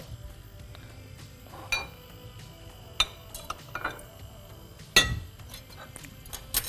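Small white ceramic dishes clinking against a glass mixing bowl as liquid ingredients are tipped in: a string of separate clinks, the loudest about five seconds in.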